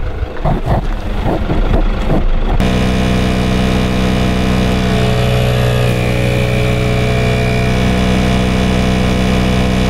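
Irregular handling knocks, then about two and a half seconds in an ARB air compressor starts running with a steady hum, pumping up a 4x4's tyre through an inflator hose.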